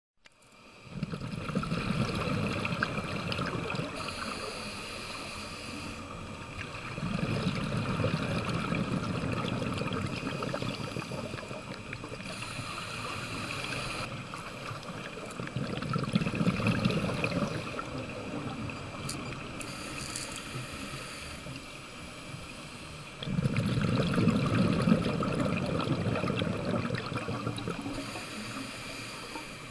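Underwater breathing through a scuba regulator: long rumbling bursts of exhaled bubbles alternate with short hissing inhalations, about four slow breaths in all.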